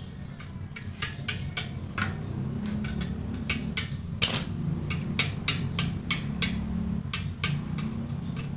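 Irregular light metal taps and clinks, about two or three a second, with one sharper strike about four seconds in, over a steady low hum. Tools are working on metal during a motorcycle rim repair.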